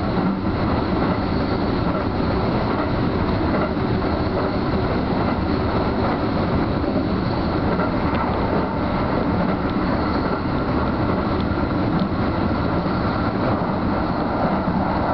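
Keio Line electric train running at speed, heard from inside at the front of the train: a steady rolling noise of the train on the rails.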